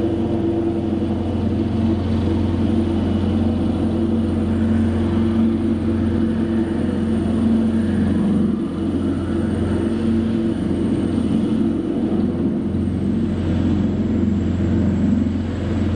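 AgustaWestland AW159 Wildcat helicopter's twin turboshaft engines and main rotor running at flight power as it hovers low and sets down on its wheels: a steady loud rotor beat under a thin high turbine whine that drops slightly in pitch near the end.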